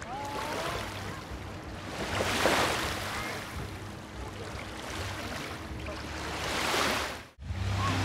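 Small waves washing up on a sandy shore of a calm sea, the wash swelling and fading twice, then cutting off abruptly near the end.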